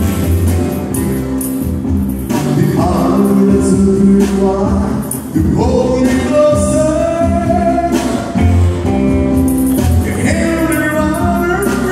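Live acoustic band playing: a male voice singing over strummed acoustic guitars, an acoustic bass guitar and a shaken tambourine.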